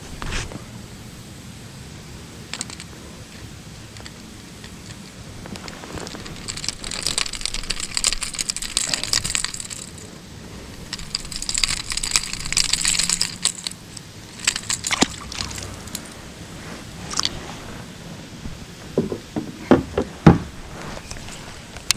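Water splashing and trickling in two stretches of a few seconds each, then a cluster of sharp knocks near the end.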